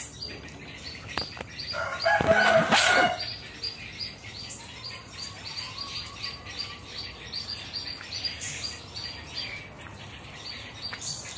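Small birds chirping, short high chirps repeating a few times a second. About two seconds in, one louder sound lasts just over a second.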